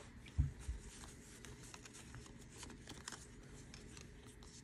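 Faint handling of Pokémon trading cards: light rustles and small taps as cards are slid and set down on a playmat, with a soft low thump about half a second in.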